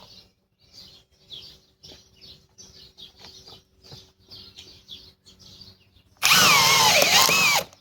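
Faint bird chirps, then about six seconds in a Greenworks Pro cordless hammer drill runs hard on speed 2 for about a second and a half, driving into a thicker piece of wood. Its motor whine sags and wavers under the load before it stops abruptly.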